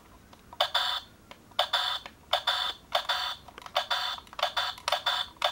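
Fisher-Price Laugh & Learn Click'n Learn Remote toy playing a rapid run of short electronic sound effects through its small speaker, about three a second, starting about half a second in.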